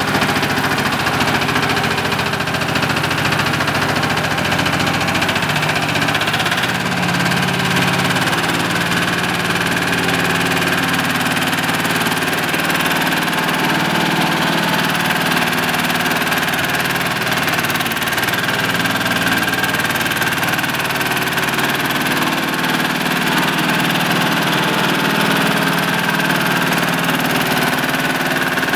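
Engine of a small 1-ton double-drum vibratory road roller running steadily at a constant speed.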